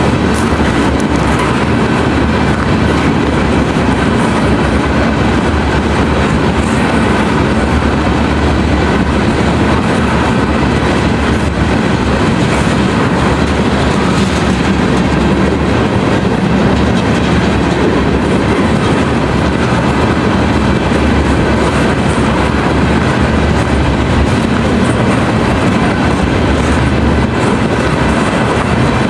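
Freight train of tank cars rolling past, a loud, steady rumble of steel wheels on the rails that never lets up.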